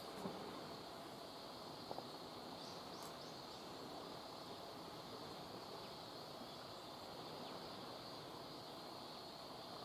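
Faint, steady outdoor ambience with an even high-pitched hiss, and a couple of light clicks near the start and about two seconds in.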